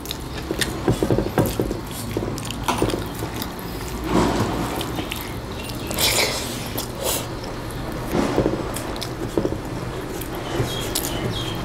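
Close-miked chewing and wet mouth sounds of two people eating rice and chicken curry by hand, with short smacks and clicks scattered throughout over a steady low hum.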